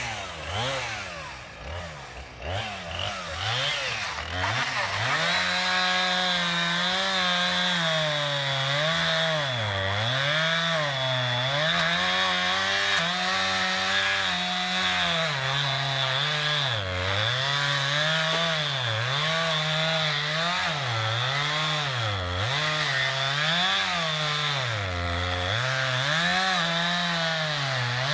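Chainsaw cutting into a tree. The engine runs unsteadily for the first few seconds, then at high revs, its pitch dipping and recovering every second or two as the chain loads in the cut.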